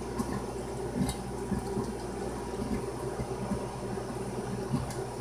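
Spaghetti meat sauce bubbling in a lidded pot, with irregular soft pops over a steady hum.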